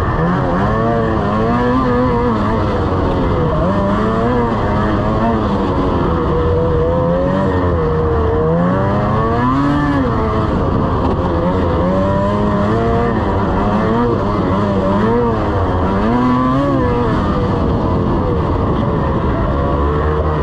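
Lynx RS 600 snowmobile engine running under way, its pitch rising and falling again and again as the throttle is opened and eased, over a steady rushing noise.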